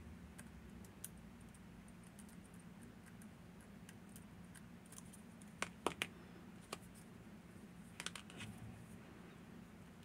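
Lock picks working inside a Miwa VM88 cam lock: faint, scattered metallic ticks, with a few sharper clicks about six seconds in and a short cluster of clicks about eight seconds in.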